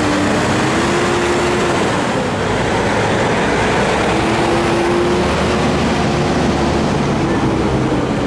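Heavy diesel frack and sand trucks passing slowly in a close convoy: a steady engine drone whose pitch rises in the first second, drops away for a couple of seconds, then rises again.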